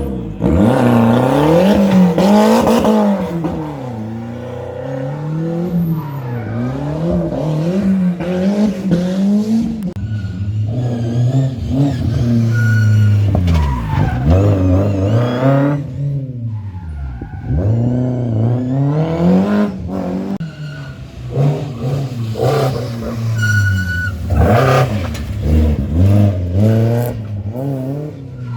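Historic rally car engine revving hard and falling back again and again as it is driven through a special stage, the pitch repeatedly climbing and dropping with gear changes and lifts off the throttle. A few brief squeals from the tyres are heard along the way.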